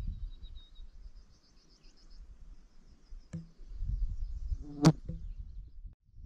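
Low rumbling noise of walking on a forest trail, with a small click a little over three seconds in and a louder sharp knock about five seconds in. A faint high trill sounds in the background early on.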